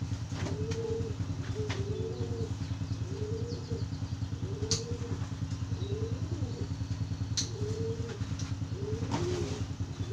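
A small engine idling steadily with a fast low pulse. Over it, doves coo in a short rising-and-falling call repeated about every second, and there are two sharp clicks in the middle.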